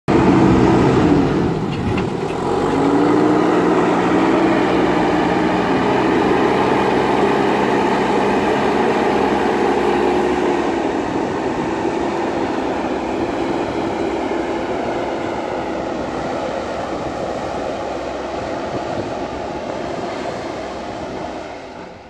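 JCB backhoe loader's diesel engine running under load as the front bucket pushes and levels soil. The engine note dips briefly about two seconds in, then holds steady and slowly fades as the machine moves away.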